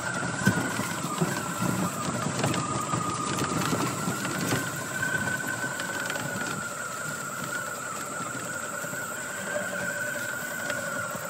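Small utility vehicle driving along a dirt track: a steady motor whine that wavers a little in pitch, over the rumble of the ride.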